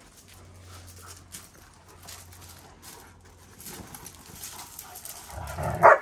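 Two young Kangal dogs playing on gravel: paws scuffing and crunching on the stones, then one dog gives a short, loud vocal outburst near the end.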